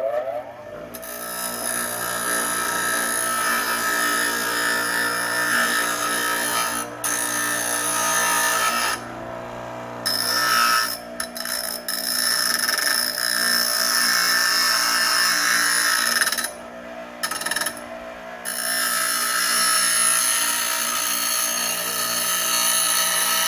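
Grinding wheel taking metal off the end of a latch arm: a steady motor hum under a harsh high hiss from the metal on the wheel. The hiss breaks off briefly several times as the piece is lifted away and pressed back on.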